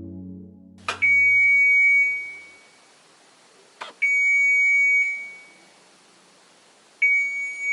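Washing machine's end-of-program alert: three long, steady, high beeps about three seconds apart, each starting with a sharp click, signalling the wash program has finished.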